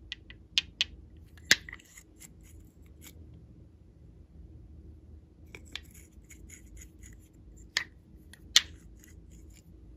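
Sharp plastic clicks from small doll-shaped plastic glitter bottles and their caps being handled, the loudest about a second and a half in and again near the end. Between the clicks comes a light, quick patter as glitter is shaken out of the bottles.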